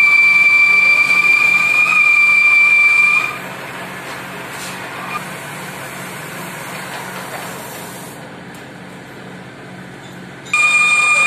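Metal lathe turning a steel workpiece, the tool cutting and throwing off long curly chips. A steady high-pitched whine for about the first three seconds, then a quieter, duller running-and-cutting noise, with the loud whine returning suddenly near the end.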